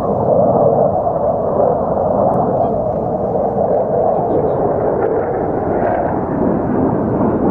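Loud, steady jet engine noise from a low formation of a KC-135 tanker with F-35A and F-16 fighters passing overhead. The noise swells in the first second, then holds.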